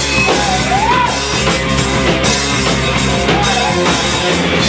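Live rock band playing, with drum kit and guitar; a melodic line slides up and down in pitch about a second in.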